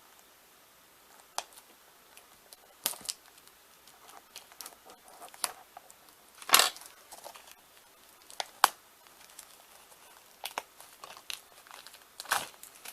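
Plastic shrink-wrap being torn and crumpled off a Blu-ray case: irregular crinkling and short rips, with the loudest tear about halfway through.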